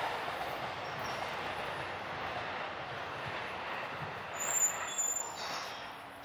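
Train moving away, its rumble fading steadily, with a brief high squeal about four and a half seconds in.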